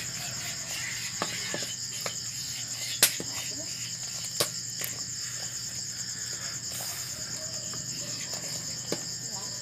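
Crickets chirring in a steady, pulsing high trill. A few sharp clicks come from a metal ladle against the metal pot as coconut milk is stirred down into latik, the loudest about three seconds in and again a second and a half later.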